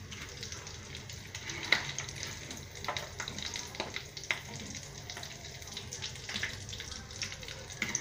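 Hot oil sizzling and crackling steadily as gram-flour-battered potato balls deep-fry in a wok, with a few sharper clicks of a metal slotted spoon against the pan.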